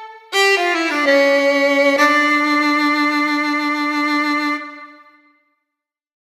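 Closing music: a single melodic instrument plays a quick falling run of notes, then one long held note that fades away a little after five seconds in.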